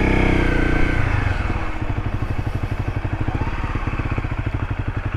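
Honda CRF250L dual-sport motorcycle's single-cylinder engine coming off the throttle. About a second in its note drops, and it settles into an even, fast low beat, idling or barely ticking over as the bike rolls slowly.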